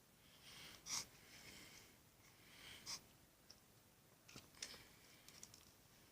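Near silence, with a few faint short rustles.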